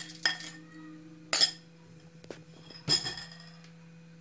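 Glass bowl clinking against a metal pot and utensil as sugar is tapped out of it into a pot of water: a few sharp clinks that ring briefly, the loudest about a second and a half and three seconds in, over a steady low hum.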